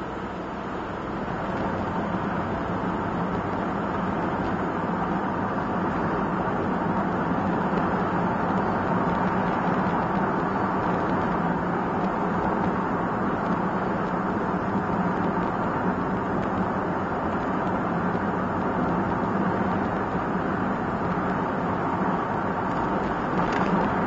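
Engine and road noise heard inside a kei one-box van's cabin while it drives along: a steady drone that grows louder about two seconds in, then holds.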